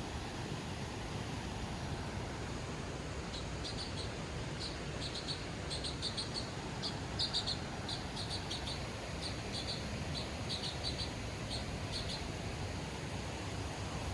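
A small bird chirping in quick clusters of short, high notes over a steady rushing background noise. The chirps begin a few seconds in and stop near the end.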